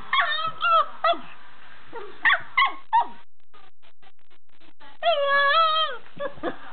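Pug barking in quick bursts of short, high barks and yips, then giving one longer, drawn-out howl about five seconds in.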